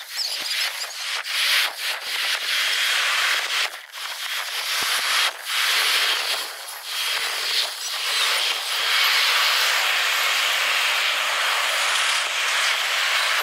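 Jet engine noise of a Boeing 787 landing and taxiing, sped up fourfold so it comes out as a high, even hiss. It is chopped by abrupt dips every second or two, then steadier in the second half.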